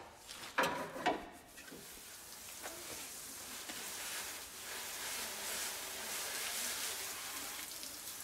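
Garden hose spray nozzle hissing steadily as water sprays onto the metal of an empty truck engine bay, starting about two seconds in, after a couple of short knocks near the start.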